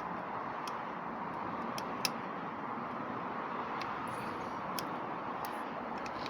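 Steady background hiss with a few faint, sharp clicks, the loudest about two seconds in.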